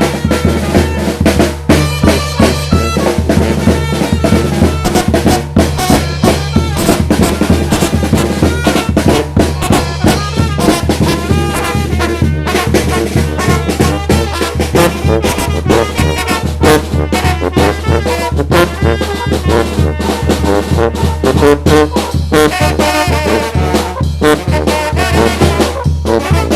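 Mexican brass banda playing live: trumpets and trombones carrying the tune over a steady low bass and a driving drum beat.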